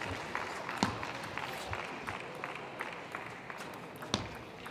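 Scattered clapping from a small crowd in a table tennis hall, thinning out, with two louder sharp clicks about a second in and near the end.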